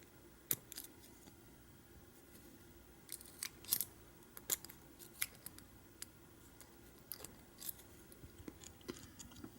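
Lock picks clicking and scraping in the keyway of an American 600 padlock: small, sharp, irregular ticks a second or so apart, with a quick cluster a little past the third second. The lock's pins are frozen stiff.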